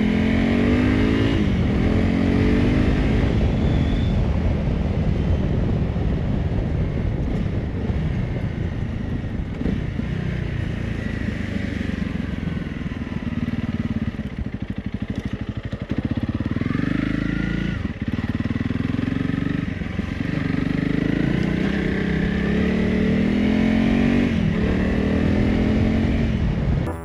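Honda CRF 300 Rally's single-cylinder engine running on the move, with wind noise. It rises in pitch as the bike accelerates near the start and again near the end, and drops to a quieter low run around the middle before pulling away.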